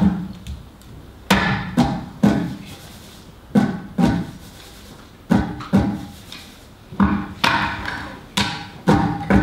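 Table percussion: hands striking a tabletop with sharp knocks and slaps in short groups of two or three hits, with pauses of about a second between the groups.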